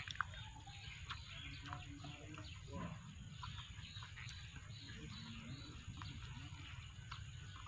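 Faint farmyard background of birds chirping and chickens clucking, with a few short clicks, over a low steady rumble.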